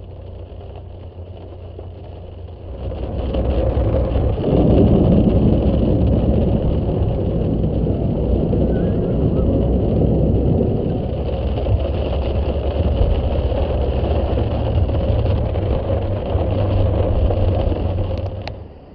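Car driving through flood water on the road: a loud, steady rush of spray from the tyres starts about three seconds in and stops just before the end, over a low rumble of engine and road.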